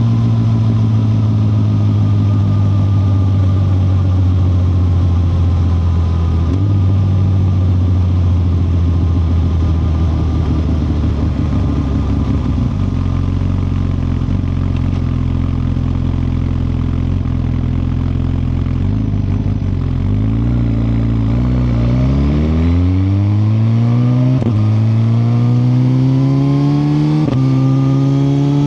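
Suzuki GSX-R1000R's inline-four engine under way, its pitch slowly falling as the bike rolls off. From about two-thirds of the way in it revs up hard through the gears: several rising climbs, each cut by a quick upshift.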